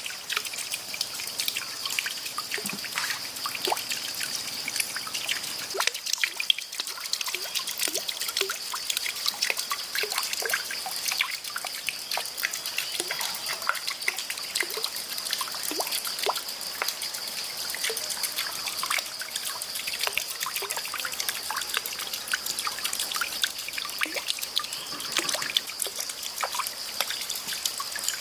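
River water trickling and dribbling in many small, quick splashes, with a steady high-pitched whine behind it.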